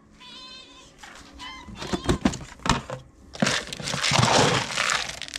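A cat meows once, high-pitched, in the first second. A few sharp knocks follow, then from about three and a half seconds in comes a loud crinkling rustle.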